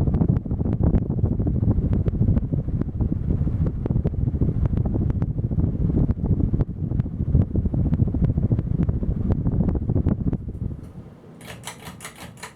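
A Regency Marquis-MX ceiling fan running, its airflow buffeting the microphone as a loud, uneven rumble with scattered knocks. Near the end the rumble drops away and a quick run of about five sharp clicks follows.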